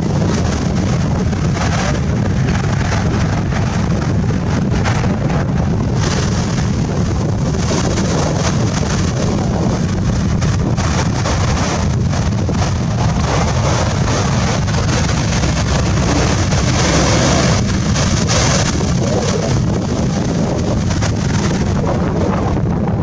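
Strong wind buffeting the microphone over the rushing noise of a rough sea breaking, steady throughout and swelling briefly about three quarters of the way through.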